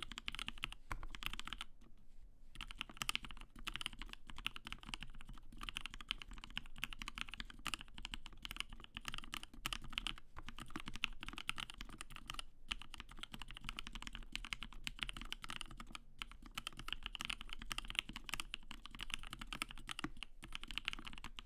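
Continuous fast typing on a custom 60% mechanical keyboard with a 5 mm layered acrylic case and plate, Gateron Ink linear switches with lubed springs, and PBT keycaps, with a few brief pauses.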